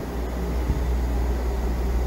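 Steady city street ambience: a constant low rumble under an even hiss, with no single distinct event standing out.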